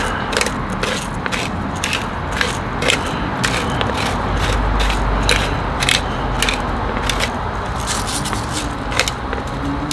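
Hand-held pepper grinder being twisted, crunching peppercorns in a run of irregular clicks, two or three a second.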